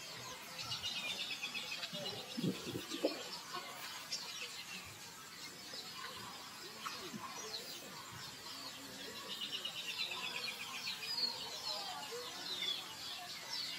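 Birds singing in fast, high, chirping trills, one run about half a second in and another about nine and a half seconds in, with scattered single chirps between. A brief, louder, lower-pitched sound comes about three seconds in.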